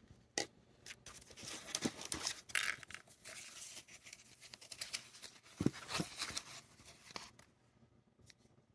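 Packaging rustling and crinkling with light clicks and knocks as boxed LED wax candles are handled, with a couple of firmer knocks past the middle. It dies away near the end.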